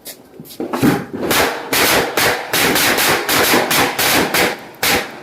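Diwali firecrackers going off in a rapid, irregular series of sharp bangs, several a second, announced as a tiger bomb.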